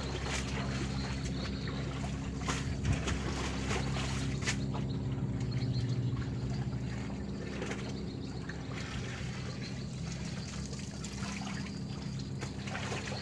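River water lapping and trickling at the bank, with a few short splashes and a steady low hum underneath.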